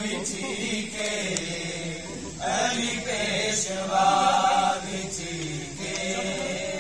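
A voice singing long, drawn-out melodic phrases in a Sufi devotional style, over a steady low drone.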